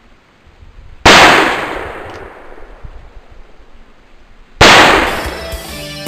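Two loud shots from a black-powder firearm, about three and a half seconds apart, each dying away over a couple of seconds. Guitar rock music starts near the end.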